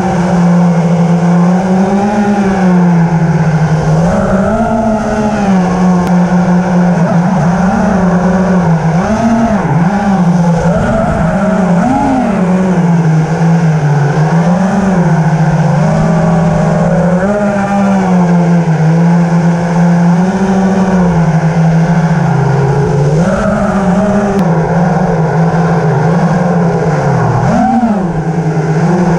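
FPV drone's motors and propellers buzzing loudly, the pitch swinging up and down as the throttle changes while it chases dirt bikes.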